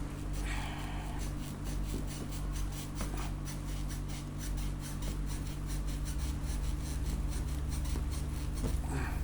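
Rapid scratching and rubbing on cardboard packaging as a small refrigerator is unpacked, over a steady low hum.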